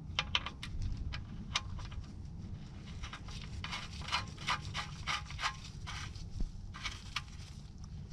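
Gloved hand rubbing and scraping against the underside of the oil pan of the OM617 diesel, a run of irregular short scrapes and ticks over a low steady rumble.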